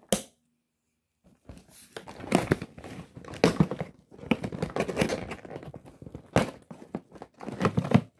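Toy packaging rustling and crinkling in irregular handfuls as a Woody doll is worked free of its box, with a sharp click right at the start.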